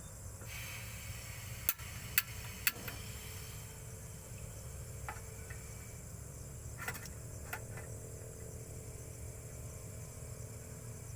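Three sharp clicks about half a second apart, then a few softer clicks and knocks, from coffee-making gear being handled, over a steady low rumble and faint insect chirring.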